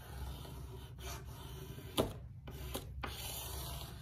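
A hand burnishing tool rubbed firmly back and forth over transfer-paper stencil laid on a wooden board, pressing it down so paint cannot seep under the edges. A sharp tap sounds about two seconds in.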